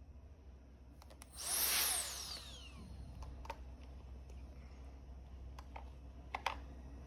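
Turbo fan blasting in a short rush of air about a second and a half in, its whine falling as it spins down, followed by a few sharp clicks.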